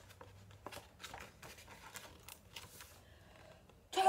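Soft rustling and light taps of a picture book's paper pages being handled and turned. Near the end a woman's voice comes in loudly.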